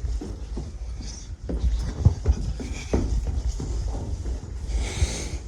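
Footsteps going down hard stairwell steps, irregular thuds about two a second over a low rumble.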